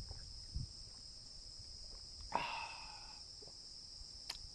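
Steady high-pitched chorus of insects shrilling in the heat, with one short, sharper sound about halfway through.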